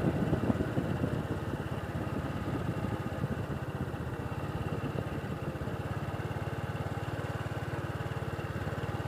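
Small vehicle engine running at a steady speed, with fast, even firing pulses.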